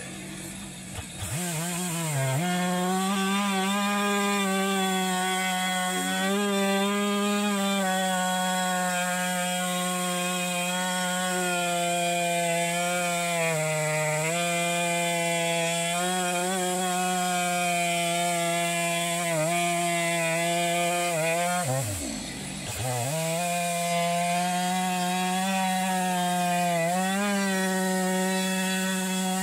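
Gas chainsaw in an Alaskan chainsaw mill, fitted with a ripping chain, ripping a cedar flitch lengthwise into 1-inch boards. It revs up about a second in and holds a steady high pitch under load, sagging and recovering a few times. About two-thirds of the way through, the engine note drops sharply and revs back up.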